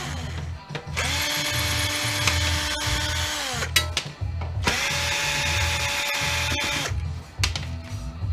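Ryobi cordless drill-driver working the screws on a rear-projection TV's projection tube assembly. It runs twice, each run a steady whine that drops in pitch as it stops, followed by a few light clicks near the end.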